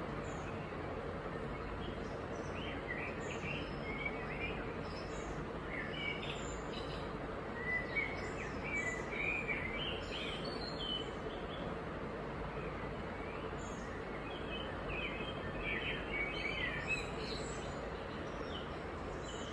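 Birds chirping in the background over a steady hiss of background noise, in short flurries of high chirps about three seconds in, through the middle, and again near the end.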